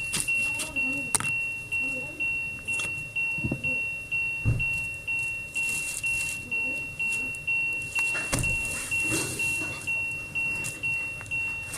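An electronic warning chime beeping over and over, about two fading tones a second, with a few short knocks of handling in between.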